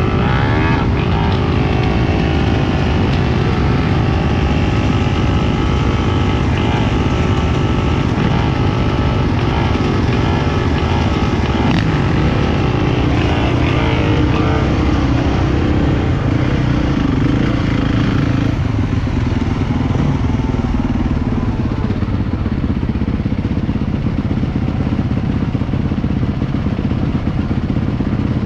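Many dirt bike engines running together at idle, with short revs now and then. The engine sound gets thinner and less busy about two-thirds of the way in.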